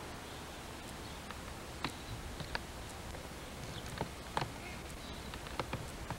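Faint outdoor background: a steady low hum with a handful of light, sharp clicks scattered irregularly through it.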